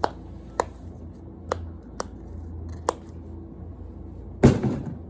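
Silicone push-pop bubbles on a pop fidget spinner being pressed: five sharp pops spaced half a second to a second apart. Then comes one louder knock, about four and a half seconds in.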